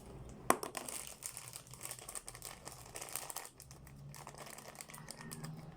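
Irregular crinkling and rustling, as of packaging being handled, with a sharp click about half a second in.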